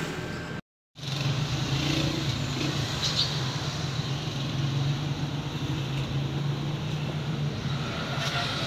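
A steady low mechanical hum over street traffic noise. All sound drops out briefly about a second in.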